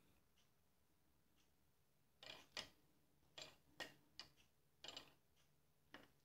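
Near silence, with a few faint, irregularly spaced light clicks in the second half.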